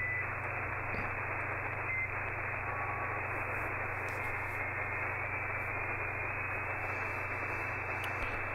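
Shortwave static from an RTL-SDR dongle receiving in upper sideband around 11.6 MHz: a steady hiss over a low hum, with short whistling tones as the tuning sweeps past carriers in the first few seconds.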